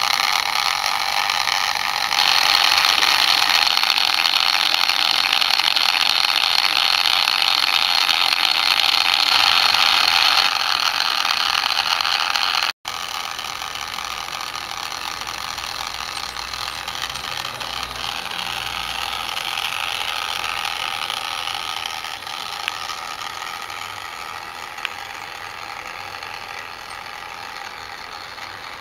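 Battery-powered Ivor the Engine toy locomotive running along its track, its small electric motor and gears whirring steadily. The sound drops sharply about 13 seconds in, then fades slowly as the engine moves away.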